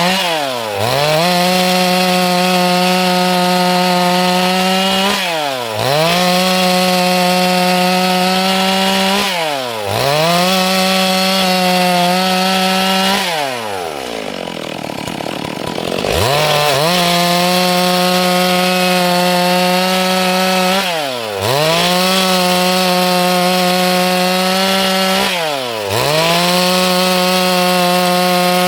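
Stihl MS 382 two-stroke chainsaw running at high revs, cutting wood. The revs dip and climb back about every four to five seconds, with a longer drop to low revs about halfway through.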